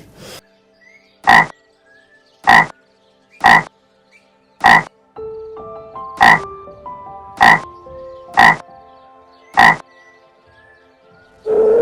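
An animal calling in short, loud croaks, eight times at about one-second intervals. Soft background music plays under the later calls.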